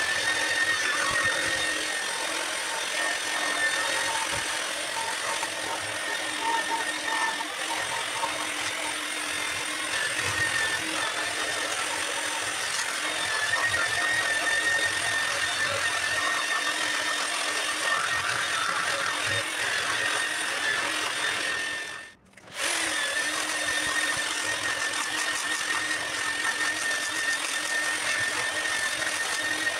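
Electric angle grinder with a sanding disc running steadily, sanding cedar root wood, with a constant high whine over the motor hum. It drops out for a split second about two-thirds of the way through and then carries on as before.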